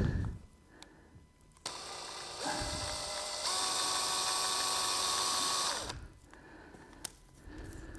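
Handheld power drill boring a hole into a small resin part with a twist bit. The motor spins up in steps to a steady whine, runs about four seconds and stops.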